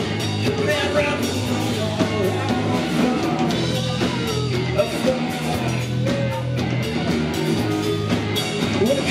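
Rock band playing live: electric guitars and drum kit in a loud, full mix.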